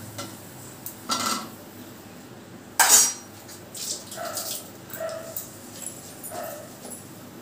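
Metal kitchen dishes and utensils clattering, with two sharp clatters about one and three seconds in, the second the louder. Several faint short sounds follow.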